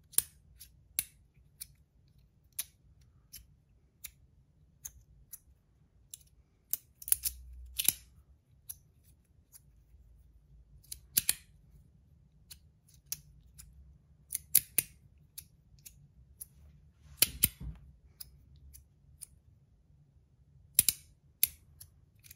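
Brass magnetic haptic stack slider being fidgeted: its pieces slide and snap into place with sharp metallic clicks at irregular intervals, some in quick pairs or clusters.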